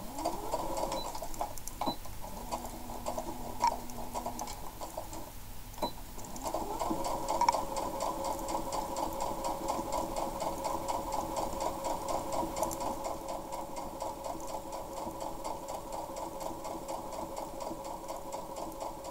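Electric household sewing machine stitching, a rapid needle rhythm over the motor's hum. It starts with a rising whine as the motor speeds up, pauses briefly about six seconds in, then speeds up again and runs steadily at speed for the rest.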